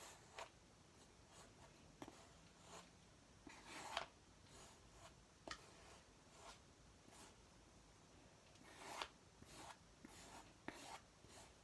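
Kinetic sand being worked and scraped: faint, irregular soft scraping and crunching strokes, the longest about 4 s and 9 s in.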